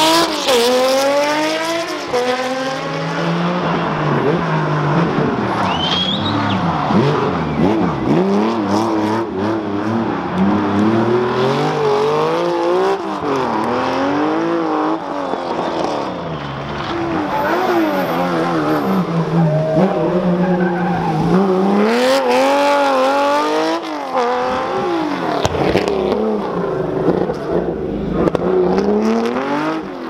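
Air-cooled flat-six engines of classic Porsche 911 SC rally cars being driven hard, one car after another. The engine note climbs and drops repeatedly with throttle and gear changes through the corners.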